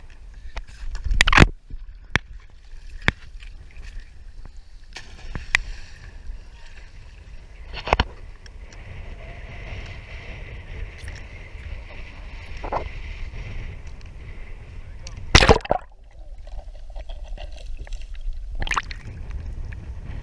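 Wind on the microphone and water sloshing around a small boat, broken by a few sharp knocks, the loudest about a second in and at about fifteen seconds.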